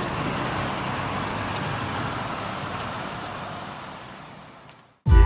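Steady road and engine noise inside a moving car, fading out over the last two seconds, with a loud burst of electronic music cutting in at the very end.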